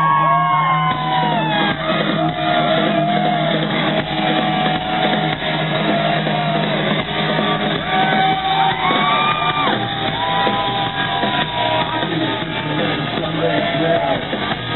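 Live rock band playing loudly through a concert PA, with electric guitars holding and bending long notes over bass and drums, heard from inside a large hall. Crowd members shout over the music.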